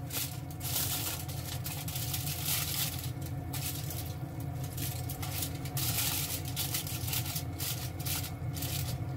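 Sauce bubbling and crackling in a frying pan of chicken and daikon at a simmer, with aluminium foil crinkling near the end as it is pressed down over the food as a drop lid. A steady low hum runs underneath.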